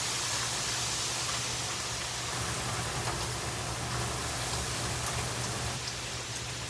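Heavy hurricane rain pouring down in strong wind, heard from inside the house as a steady hiss with a low rumble underneath.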